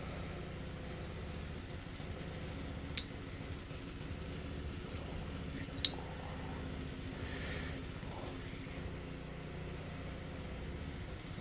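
Steady low hum, with two sharp clicks about three seconds apart and a short hiss soon after.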